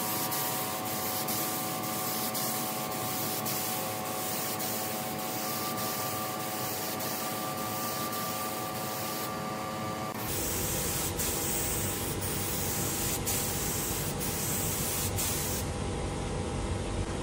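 Compressed-air spray gun hissing steadily as it sprays finish onto a hardwood table top, with a steady hum underneath. The hiss breaks off briefly about nine seconds in and stops near the end.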